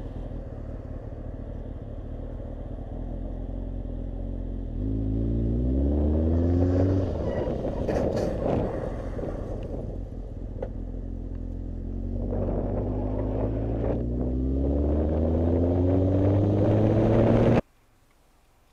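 Motorcycle engine accelerating, its pitch climbing once about five seconds in and again, more slowly, from about twelve seconds, over a steady rush of road noise. The sound cuts off suddenly near the end.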